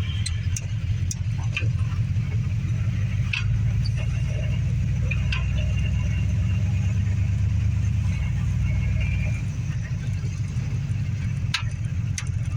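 1957 Chevrolet Bel Air's engine idling steadily, run to test its newly installed radiator, with a few light clicks over it.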